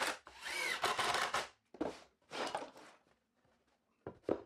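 Cordless power driver sinking long GRK wood screws through a 2x4 into pressure-treated 2x6 lumber: a continuous run of about a second and a half with a shifting motor whine, then a few shorter, quieter runs. Near the end come two short knocks.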